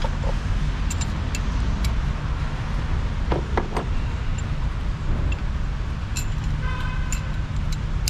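A few light metallic clicks and clinks of hand tools, a ratchet and socket extension being picked up and handled, over a steady low background rumble. A short pitched tone sounds briefly just before the end.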